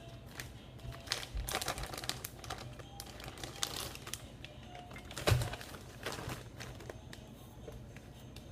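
Irregular light clicks and clatter of kitchen things being handled, with one louder knock about five seconds in.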